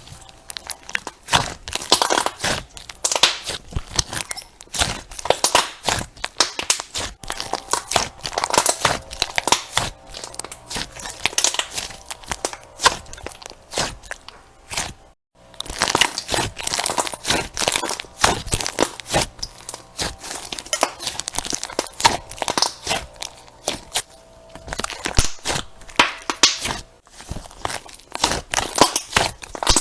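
Crunchy slime being squeezed and pressed: a dense, continuous run of crackling, popping crunches, with a brief break about halfway through.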